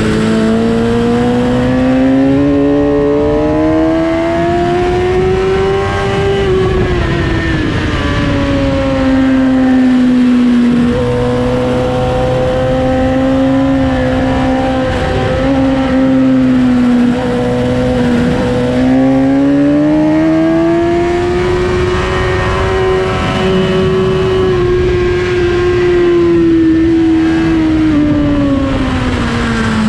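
Suzuki GSX-R1000 K8's inline-four engine held in third gear on track. The revs climb, ease off through a bend, hold steady, then climb and ease off again, with no gear changes.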